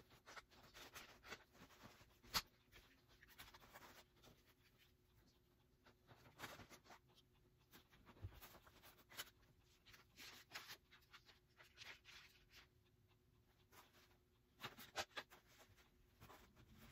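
Faint rustling and scattered small clicks of hands handling a Chicco stroller's padded seat fabric, harness and plastic parts, with one sharp click about two and a half seconds in and a brief flurry of clicks near the end.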